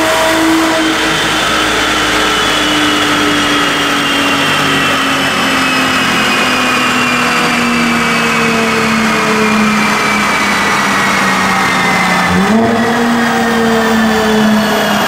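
Mercedes-Benz C450 AMG's twin-turbo V6 running on a chassis dynamometer through a Meisterschaft GTC stainless cat-back exhaust. The engine note falls slowly for about twelve seconds, then jumps up sharply and falls slowly again.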